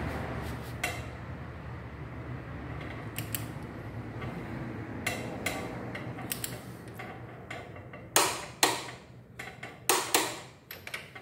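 A torque wrench ratchets on a motorcycle swingarm pivot bolt as the bolt is tightened to 65 foot-pounds. It gives scattered clicks and creaks, with the loudest few strokes near the end.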